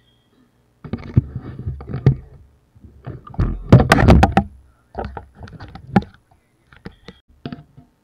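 Handling noise on the camera's microphone: irregular thumps, knocks and rubbing as the camera is grabbed and moved about, starting about a second in and loudest around four seconds, with a few lighter knocks near the end.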